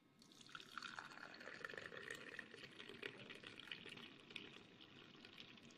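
Masala tea poured in a thin stream into a brass tumbler: a faint, steady splashing pour with a fine crackle of froth, starting just after the beginning.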